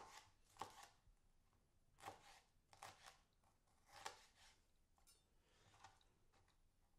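Chef's knife slicing a red pepper into strips on a cutting board: about seven faint knocks of the blade reaching the board, spaced irregularly.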